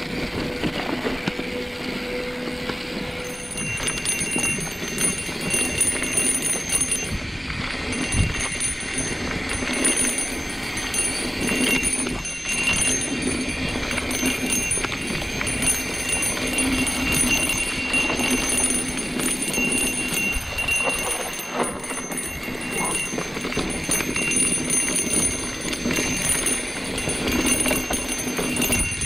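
Mountain bike rolling along a dirt trail: steady tyre and riding noise with rattling, clicks and knocks from the bike.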